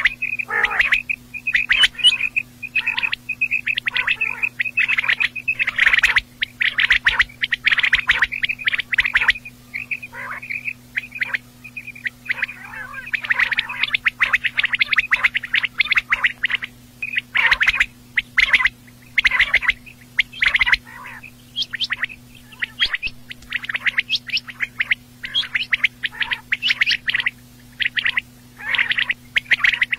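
Quail calling over and over in a dense run of short, sharp chirps, with a steadier trilling stretch in the first few seconds.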